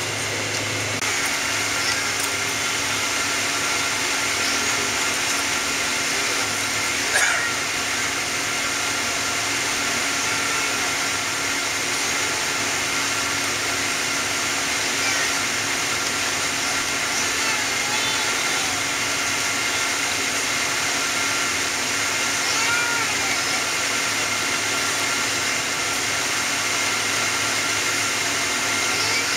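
Steady cabin noise inside a Boeing 777-200ER on the ground after landing: idling engines and air-conditioning, a constant rush with steady whining tones. A short knock sounds about seven seconds in.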